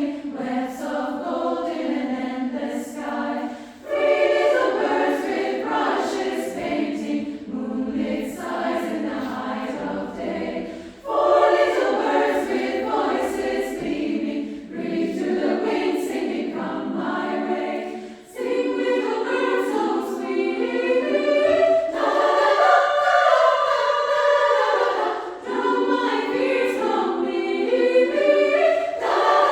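Female choir singing in three upper-voice parts (SSA), in phrases broken by short breaths.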